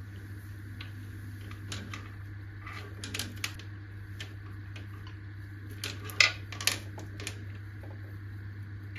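Scattered light clicks and knocks of small objects being handled, the loudest a pair about six seconds in, over a steady low hum.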